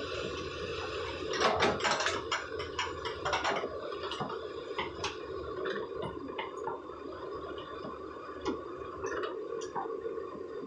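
Hyundai crawler excavator engine running steadily, with a burst of metal clanks and knocks from about one and a half to three and a half seconds in and scattered single clicks after, from the machine working its bucket and tracks.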